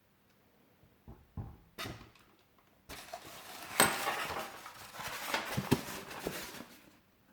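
Packaging being handled while a boxed diecast model car is unpacked: a few light knocks, then about four seconds of busy rustling and crackling with sharp clicks, stopping near the end.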